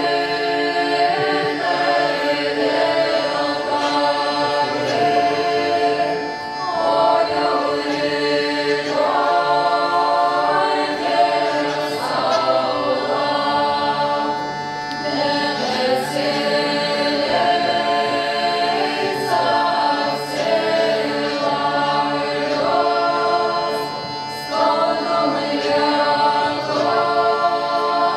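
Lithuanian ritual folk song sung by a mixed group of men's and women's voices together, in sustained chant-like phrases of a few seconds each.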